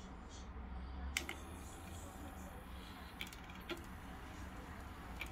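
Light clicks and taps of a cotton swab and fingers against the plastic parts of an opened cassette deck mechanism, a handful of them, the sharpest a double click about a second in, over a low steady hum.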